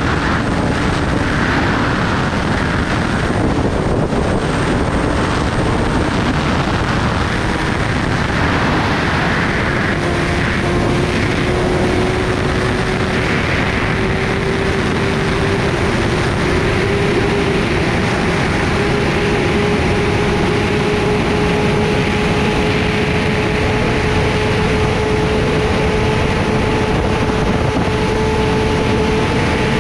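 Heavy wind rushing over the microphone of a Kawasaki Ninja ZX-10R ridden at highway speed, with the bike's inline-four engine note underneath, its pitch climbing slowly and steadily through the second half.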